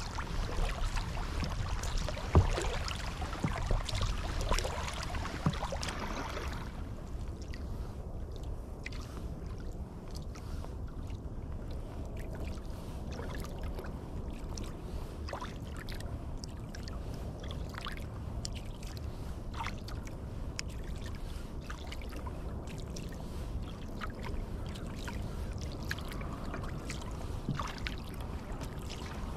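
Sea kayak being paddled on calm sea: water splashing and trickling off the paddle for the first six seconds or so, then it goes quieter, with only scattered drips and small splashes over a low steady rumble.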